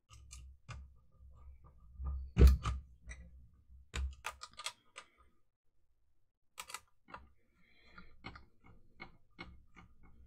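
Irregular clicks and taps of a GHD SS4 hair straightener's plastic casing being fitted together and a screwdriver turning a screw into it, with one louder knock about two and a half seconds in.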